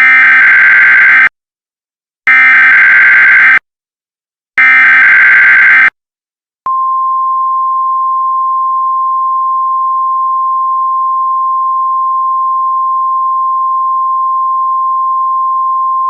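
Emergency Alert System header: three short bursts of digital data tones about a second apart, then a single steady attention tone that starts about six and a half seconds in and holds.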